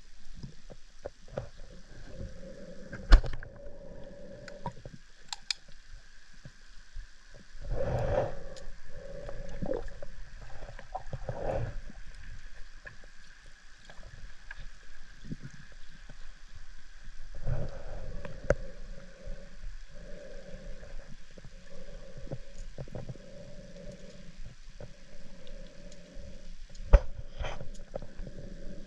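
Underwater drone's electric thrusters humming in stretches that start and stop, heard through the water, with scattered small clicks and two sharp knocks, one about three seconds in and one near the end.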